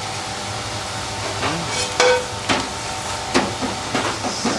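Batter-coated sliced okra deep-frying in a commercial electric fryer, the oil bubbling and sizzling steadily, with a few light knocks partway through. The lively bubbling shows that moisture is still cooking out, so the okra is not yet crisp.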